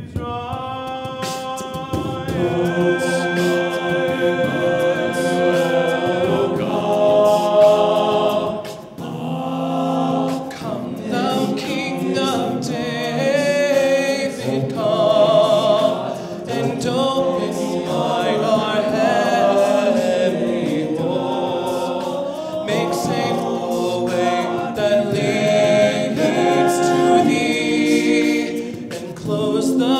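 Men's a cappella ensemble singing in close harmony through handheld microphones, a lead voice carried over the group's backing parts with no instruments. The voices swell in about a second in after a brief dip.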